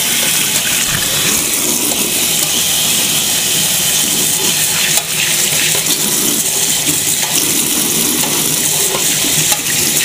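Kitchen faucet running steadily, its stream splashing over a bottle-brush air gap cleaning tool and pouring into the garbage disposal opening of a stainless steel sink.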